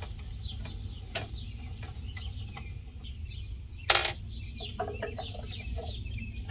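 Small clicks and taps of screws and a metal light-fixture mounting bracket being handled, with one louder clink about four seconds in. Faint bird chirps in the background.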